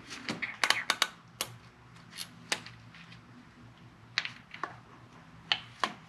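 Irregular light metal clicks and taps from timing-chain parts and small hardware being handled on a Toyota 1GR-FE V6, as the tensioner and chain guides come off: about a dozen sharp clicks, several bunched together in the first second.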